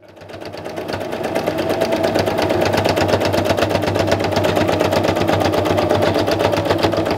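Kenmore electric sewing machine running steadily as it stitches lace trim onto a cotton pillowcase, its needle going in rapid, even strokes of about ten a second over the motor's hum. It fades in at the start and stops near the end.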